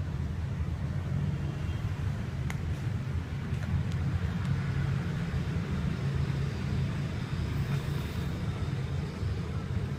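A steady low rumble, with a few faint plastic clicks from the ball in a cat's track-ball toy a few seconds in.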